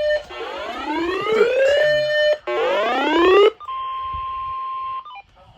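Emergency alert tones: a whooping alarm that rises in pitch over about two seconds and repeats, the third whoop cut short. It gives way to a steady single-pitch weather-radio alert tone for about a second and a half, which then stops.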